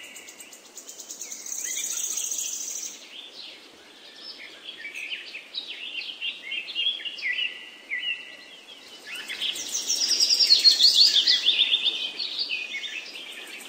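Several songbirds singing, a mix of short chirps and fast trills, loudest about two-thirds of the way through, over a faint steady hiss.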